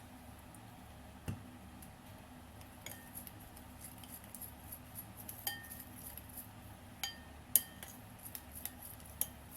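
A spoon clinking against a small dish of sauce dressing: a few scattered, faint clinks, some ringing briefly, over a low steady hum.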